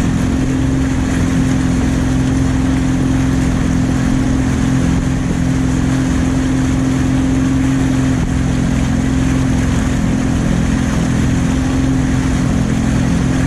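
Fishing boat's motor running at a steady speed: a constant, unchanging engine drone.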